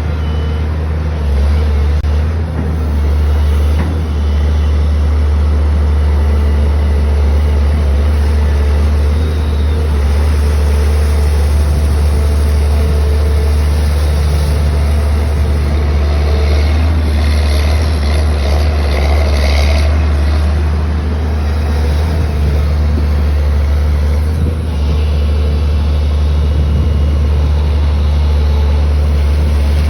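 Caterpillar 320D3 GC hydraulic excavator's diesel engine running steadily, with a deep low hum and a brief rise of higher-pitched noise about two-thirds of the way through.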